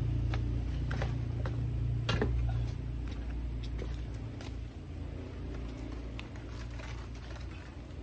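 Low, steady engine rumble of a vehicle that slowly fades away, with scattered light knocks and clicks from hands working at a potted fern.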